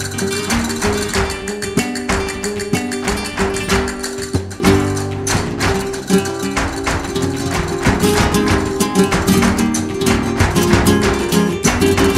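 Flamenco-style music: plucked guitar over a fast, steady rhythm of sharp percussive strikes.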